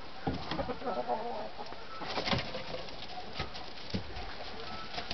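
Low calls of farmyard birds, with scattered knocks and clicks; the loudest knocks come a little over two seconds in.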